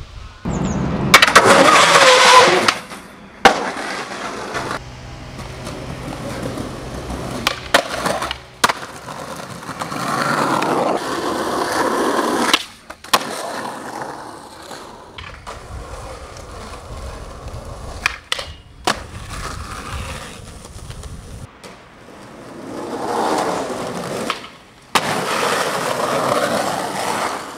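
Skateboard wheels rolling on concrete and asphalt, with several sharp clacks of the board popping, landing and hitting the ground as tricks are missed.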